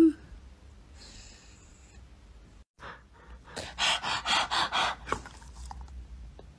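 Rottweiler panting: a quick run of about six breathy pants, a little over a second long, about halfway through.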